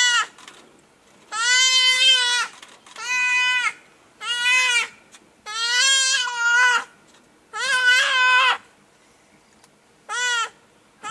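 A young antelope bleating in distress with a leopard beside it: about seven high, drawn-out calls, each up to a second long, with short pauses between them.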